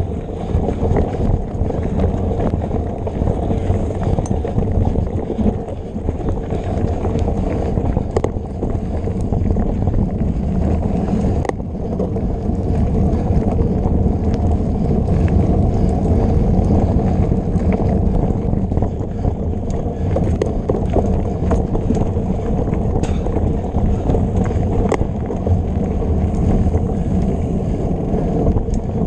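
Mountain bike rolling fast over a dirt singletrack, heard from a camera riding along: steady wind buffeting on the microphone and the rumble of tyres and frame, with scattered sharp clicks and knocks as the bike rattles over the trail.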